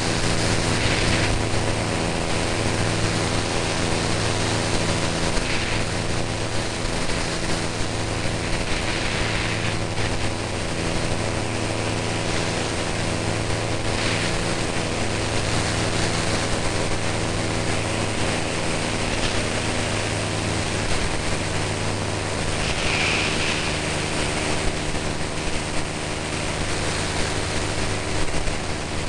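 Propeller aircraft engine droning steadily in flight after take-off, over a constant hiss of rushing air.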